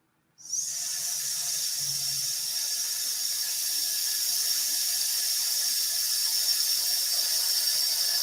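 A person exhaling the lung sound of the Taoist Six Healing Sounds, a long steady 'sssss' hiss through the teeth. It starts about half a second in and is held without a break.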